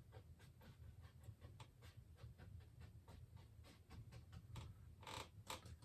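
Faint, irregular tapping and scratching of a painting tool dabbing oil paint onto canvas, several small taps a second, with a slightly louder stroke about five seconds in.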